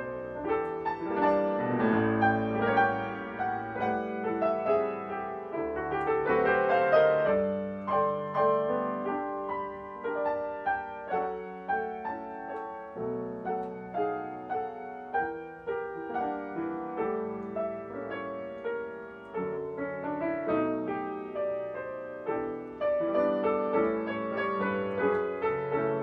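Background piano music: a solo piano playing a calm melody over chords.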